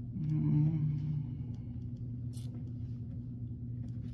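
Steady low hum, with a short louder steady tone lasting about a second near the start and a faint click around the middle.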